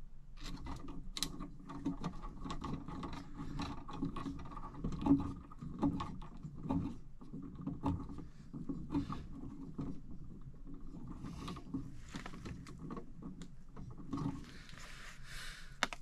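Hands twisting new plastic wire nuts onto copper wire splices and working the wires at a metal electrical box: an irregular run of small clicks, ticks and scrapes.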